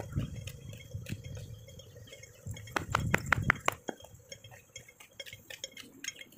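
Footsteps on brick pavement, a person walking briskly, with a run of louder, evenly spaced steps about three seconds in.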